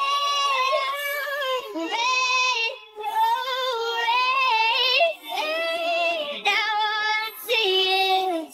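Sped-up, pitched-up a cappella female vocal singing long held notes with vibrato, in several phrases broken by short breaths. No instruments.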